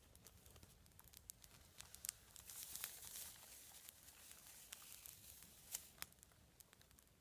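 Faint crackling of a small twig campfire burning on snow: scattered sharp pops and snaps, with a brief denser rustle about two and a half to three and a half seconds in.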